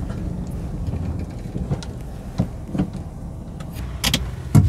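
Car running, heard from inside the cabin as a steady low rumble, with a few short clicks and knocks; the sharpest knock comes near the end.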